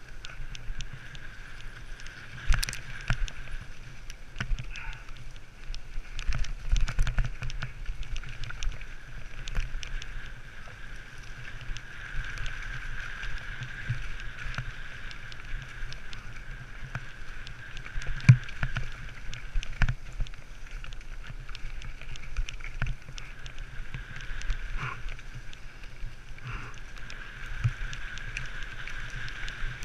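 Mountain bike descending a rough forest trail: steady tyre rumble and wind on the microphone, with frequent knocks and rattles as the bike runs over roots and rocks, and a few louder jolts.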